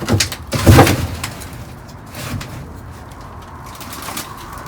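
Knocks and rustling from items being shifted around inside a dumpster, with two sharp knocks in the first second, the second the loudest, then quieter handling noise.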